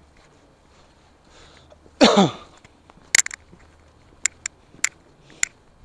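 A person's short vocal sound dropping steeply in pitch about two seconds in, then footsteps clicking on paving stones about every half second.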